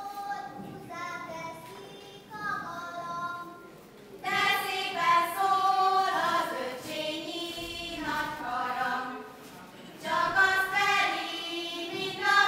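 Young female voices singing a Hungarian folk song together, with no instruments: a Sárköz girls' circle-dance (karikázó) song. The singing is softer at first and louder from about four seconds in, with a short dip in the second half.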